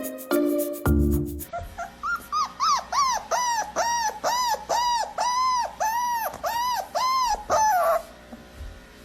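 A short stretch of background music, then a dog whining in a run of high cries, each rising and falling in pitch, about two a second, stopping about eight seconds in.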